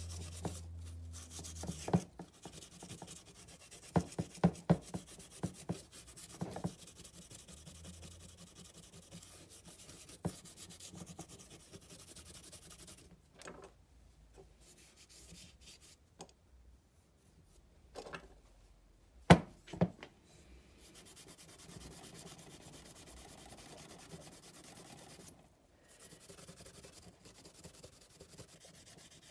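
Hand rubbing and scraping on the metal parts of a Yamaha TTR125 cylinder head, broken by a few sharp knocks and clatters of parts or tools set down.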